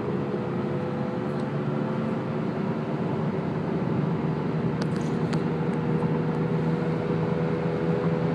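2002 Chrysler PT Cruiser driving at about 40 mph and over, heard from inside the cabin: steady road noise with a humming drone that creeps up slightly in pitch and level. The owner suspects a bad wheel bearing, and hopes it is not a transmission bearing.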